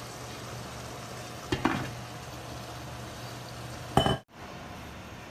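Chicken adobo simmering with a steady sizzle in a frying pan. About a second and a half in there is a clink, and at about four seconds a glass pan lid comes down on the pan with a clank and a brief ring, after which the sound cuts out for a moment.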